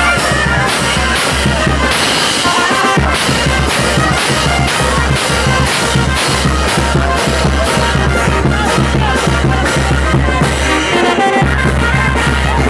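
Live brass band playing loudly: trumpets and sustained low bass notes over a bass drum and clashing cymbals keeping a steady beat of about two strokes a second. The low notes drop out briefly near the end.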